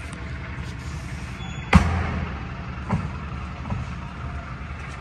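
Steady low outdoor rumble with a sharp knock a little under two seconds in, then two fainter knocks about a second apart.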